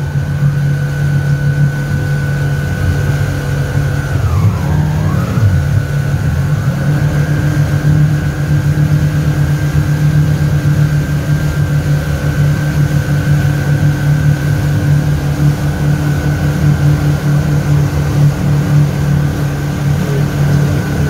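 Motorboat engine running steadily at speed, with a constant drone. About four seconds in the revs drop briefly and then climb straight back.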